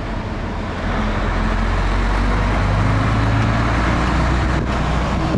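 Truck engine running and tyre and road noise, heard from inside the cab while driving. The sound steps up in loudness about a second in and then holds steady.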